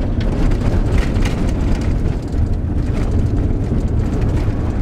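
Steady road noise inside a moving VW T4 Syncro van on a gravel highway: a dense low rumble of engine and tyres.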